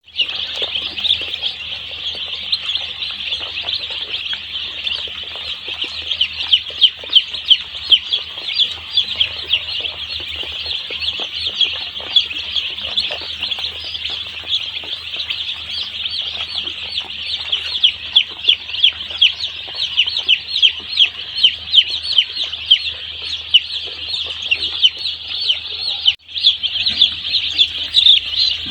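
A crowd of day-old chicks peeping nonstop: many short, high, falling chirps overlapping into a constant chorus, which drops out for a moment about 26 seconds in.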